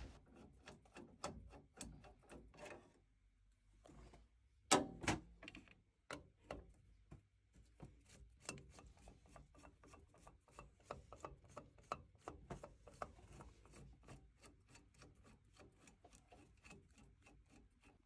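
Faint, irregular clicks and scrapes of a long-handled PZ2 screwdriver turning out the screws that hold a combi boiler's plate heat exchanger, with one louder click about five seconds in.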